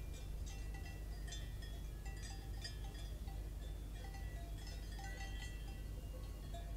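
Cowbells on grazing cattle clanking irregularly, several bells at different pitches overlapping, over a low steady rumble.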